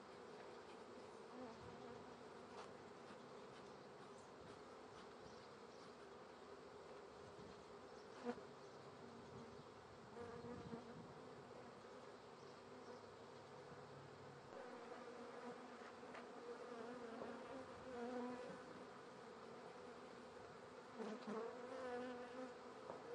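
Faint, steady buzzing of a honeybee swarm, a continuous low hum that swells a little in the second half. A single sharp click sounds about eight seconds in.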